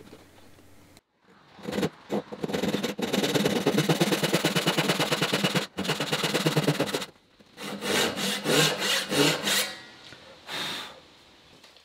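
Hand backsaw cutting through a hardwood board. It starts with about five seconds of quick, steady strokes, then a few slower, separate strokes as the cut finishes.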